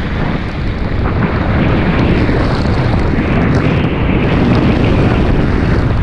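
Loud, steady rush of water and wind buffeting the microphone of a camera riding feet-first down a high-speed body water slide, with spray splashing over it as the rider picks up speed.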